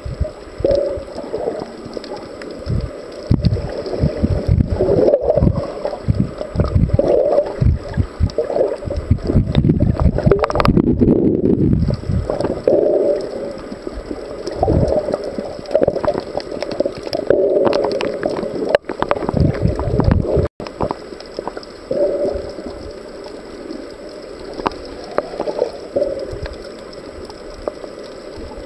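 Water moving around a submerged camera: muffled, irregular gurgling swells with low rumbling, and a few sharp knocks.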